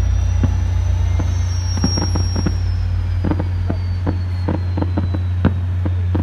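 Distant fireworks going off: irregular sharp pops and bangs, bunched several a second at times, over a steady low rumble.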